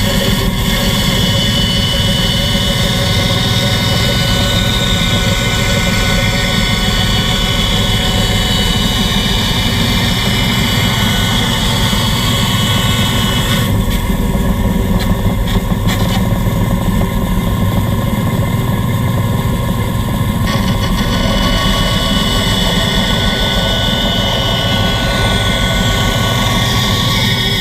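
Band saw running and cutting wood, a steady motor hum with a high whine over it. The high whine drops away about halfway through and returns some six seconds later.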